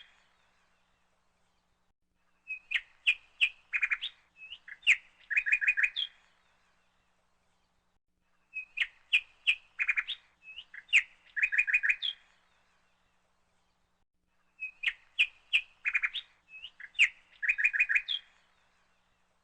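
Birdsong: a phrase of sharp chirps and quick trills, about three and a half seconds long, repeating in exactly the same form three times, once every six seconds, in the way of a looped bird-call recording.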